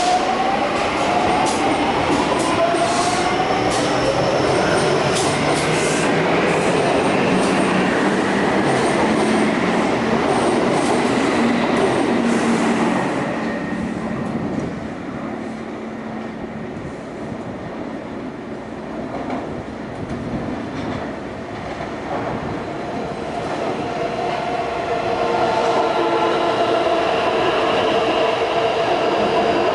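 Taipei Metro C301 train running, its VVVF inverter and traction motors whining over wheel-on-rail noise. The whine rises in pitch during the first few seconds, the sound drops away about halfway through, and pitched tones come back near the end.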